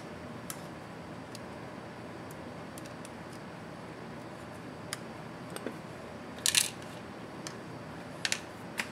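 Small sharp clicks and taps of a small screwdriver and laptop parts being handled, with a short clattering rattle about two-thirds of the way through and a couple more clicks near the end.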